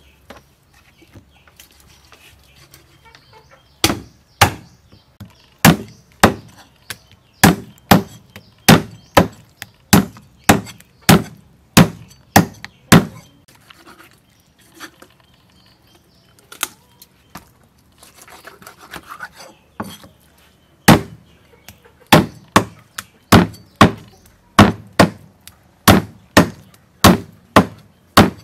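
Cleaver chopping a whole raw duck into pieces on a thick wooden chopping block: sharp chops at roughly two a second, in two long runs with a short lull between them.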